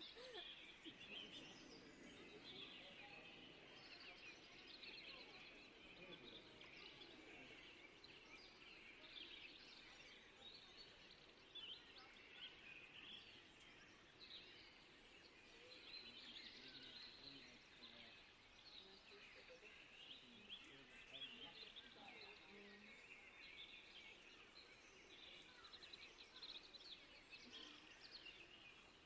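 Near silence: faint ambience with small birds chirping and twittering continually.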